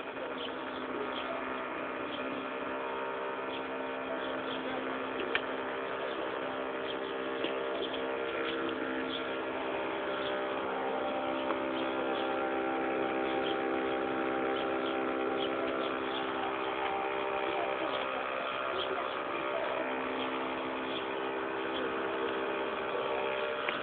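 A steady mechanical hum made of several held tones, drifting slightly in pitch partway through, with a few faint clicks.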